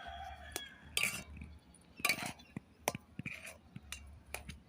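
Small utensil clinking and scraping irregularly against a miniature pan as semolina dough is stirred together with hot water.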